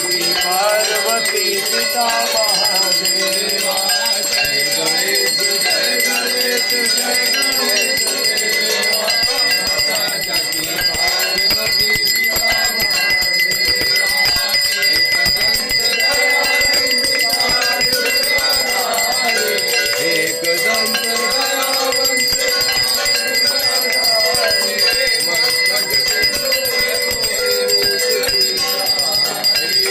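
Hindu temple bells rung continuously with rapid strikes, over a crowd singing a devotional chant and clapping along, as at an aarti.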